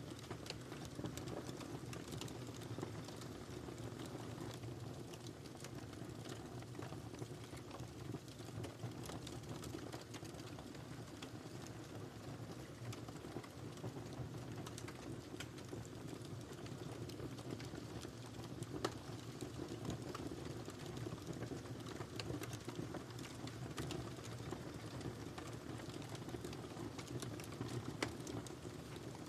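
Wood fire crackling in a fireplace: irregular small pops and snaps over a steady low rumble of the flames, with a couple of louder pops.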